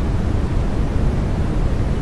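Steady white-noise sleep sound for babies: an even, unbroken hiss that is deep and rumbling, with most of its weight in the low end.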